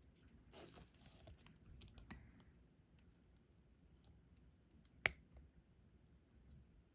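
Faint small clicks and taps of diamond-painting work: a drill pen and small plastic resin drills, with one sharper click about five seconds in.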